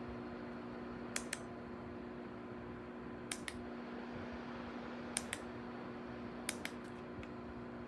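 Lasko Wind Curve tower fan running with a steady hum and airy rush. Short sharp clicks, mostly in pairs, come every one to two seconds over it.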